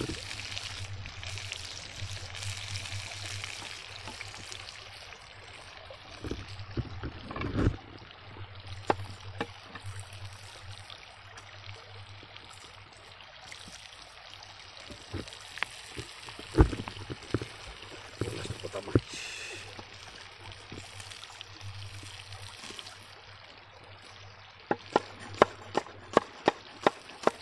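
Buffalo steak sizzling in an oiled frying pan over an open fire: a steady hiss with scattered knocks, then near the end a quick run of sharp taps, about two a second.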